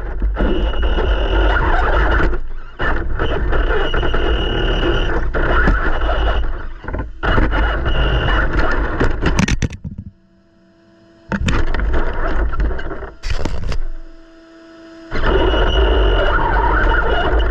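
Traxxas TRX4 RC crawler driving, heard from a camera mounted on its body: dense rattling running noise with a low rumble and a high whine that comes and goes. It falls quiet twice, about ten and fourteen seconds in, when the truck stops, leaving faint steady tones.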